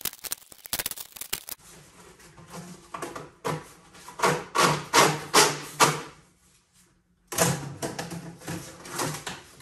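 Quick runs of clicking and clattering from plastic body panels and parts of a side-by-side being pulled off and handled, with the loudest knocks bunched about halfway through.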